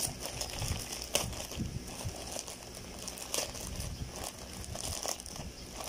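Plastic courier pouch and inner plastic wrapping crinkling and rustling in irregular crackles as they are pulled open by hand.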